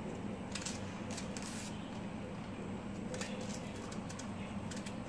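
A knife cutting and scraping the peel off a raw green banana: two clusters of short scraping strokes over a steady low hum.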